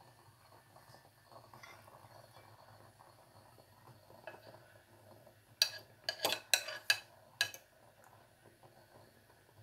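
A metal fork clinks sharply against a pot of boiling water about six times in quick succession, a little past halfway, while prodding rice cakes in the water. Before and after, the water bubbles quietly.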